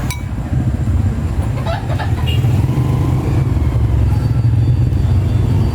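Steady low rumble of a running motor vehicle engine, with a few faint brief sounds about two seconds in.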